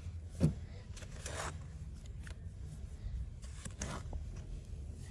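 Hands scraping and brushing through sand in a few short swishes, over a low steady rumble.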